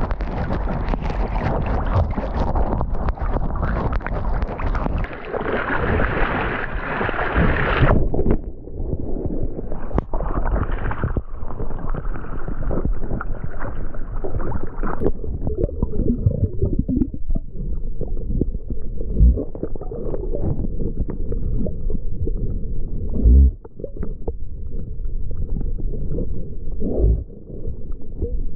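River water splashing and sloshing around a harness-mounted GoPro on a swimming dog. The sound is bright at first, goes duller about eight seconds in, and from about halfway is a muffled, gurgling wash with a few dull thumps, as the camera rides low in the water.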